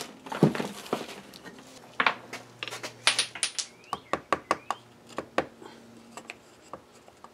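Light, quick taps of a small wooden stick rapping a screw set in a wooden pattern rammed in foundry sand, the taps coming several a second for a stretch; rapping to shake the pattern loose from the sand so it can be drawn. A louder knock and shuffle of tools being picked up comes about half a second in.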